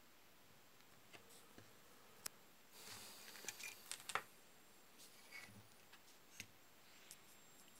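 Faint handling noise from a small circuit board being picked up and turned over on paper: a sharp click, a rustle of about a second and a half with several clicks in it, then a few softer clicks.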